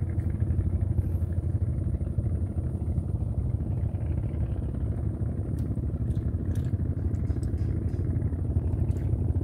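A small engine running steadily: a low, even, fast-pulsing drone, with a few faint light clicks in the second half.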